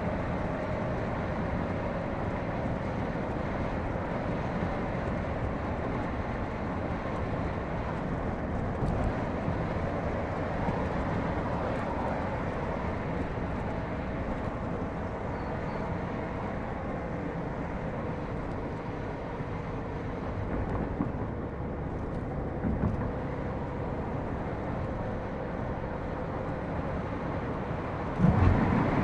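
Car driving at highway speed: steady road and tyre noise with engine drone. A sudden louder low rumble comes in about a second before the end.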